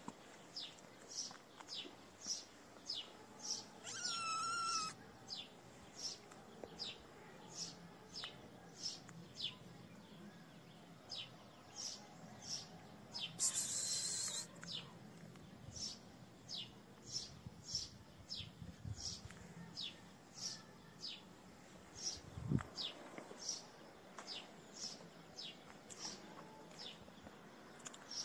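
A kitten gives one wavering mew about four seconds in, over a steady run of short high chirps, about two a second. A one-second burst of hissing noise comes about halfway through.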